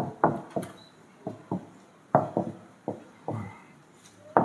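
Marker writing on a whiteboard: an irregular series of short taps and strokes as the pen is pressed, lifted and set down again.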